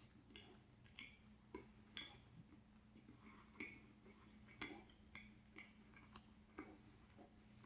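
Faint, irregular wet clicks and smacks of a mouth chewing a chocolate-filled croissant, close to the microphone over a low steady hum.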